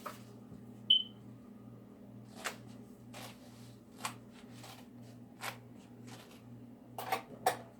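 Light knocks and clicks of kitchen items being handled and set down, with one short high beep about a second in and a steady low hum underneath.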